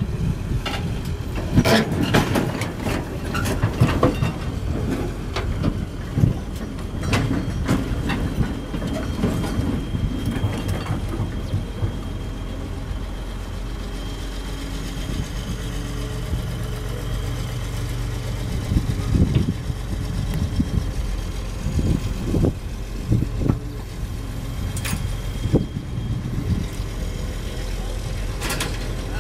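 Caterpillar 320 hydraulic excavator's diesel engine running under load as the machine climbs down off a trailer, with repeated clanks and knocks from its steel tracks and boom, thickest in the first half and again later on.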